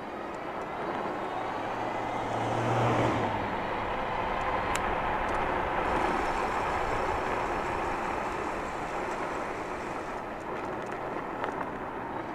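Electric bike out on the road: tyres rolling on the pavement with rushing air, a steady noise that swells to its loudest about three seconds in, with a low hum at that peak.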